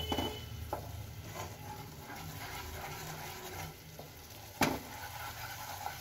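A spatula stirring and scraping a thick, bubbling milk-and-coconut barfi mixture in a nonstick pan, with a low sizzle as it cooks down and thickens. One sharp knock about four and a half seconds in.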